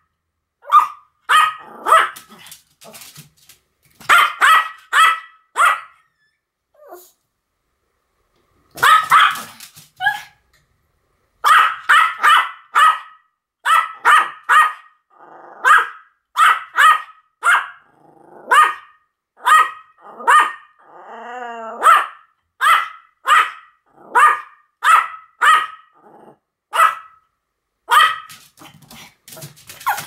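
Pomeranian barking: short, sharp, high barks in quick runs of two to four, repeated again and again. A gap of a few seconds falls about a quarter of the way in, and about two-thirds through there is one longer call that wavers up and down in pitch.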